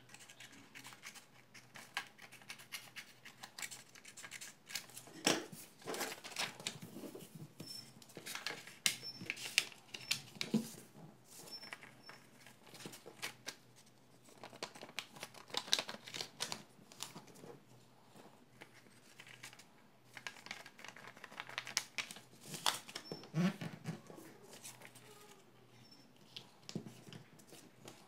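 Scissors snipping through chart paper, then the stiff sheet being handled and folded on a tabletop: an irregular run of sharp snips, crackles and paper rustles.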